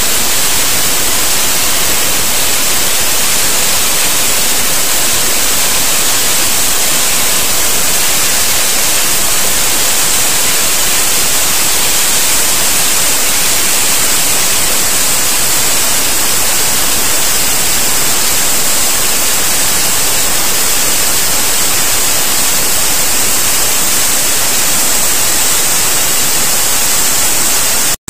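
Safety valves of the Southern Railway West Country class steam locomotive 34007 Wadebridge blowing off: a loud, steady, high hiss of escaping steam that shows the boiler is at full pressure. It cuts off abruptly near the end.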